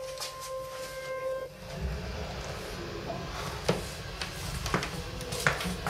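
A flat's doorbell ringing with a steady buzzing tone that stops about a second and a half in. Then footsteps and a few sharp clicks at the front door as it is approached and unlocked.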